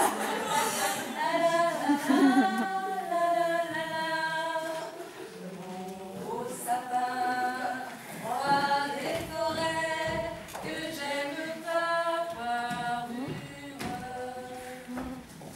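Women singing a song without accompaniment, in a series of held notes.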